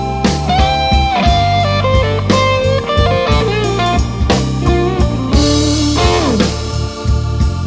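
Blues band music, instrumental: electric guitar lead with bent notes and a falling slide about six seconds in, over bass and drums.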